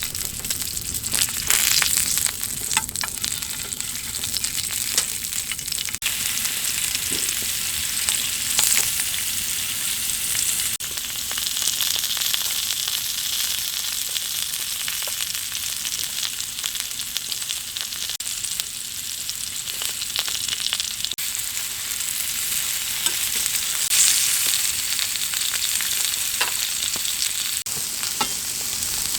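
Food sizzling steadily in a frying pan, with scattered small pops and clicks.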